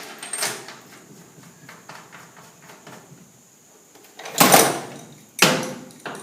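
Sliding and scraping sounds of parts being handled and fitted together, as when a gasket and cover are pushed back into place. There is a short scrape at the start, softer handling in between, and two louder scrapes about four and five seconds in.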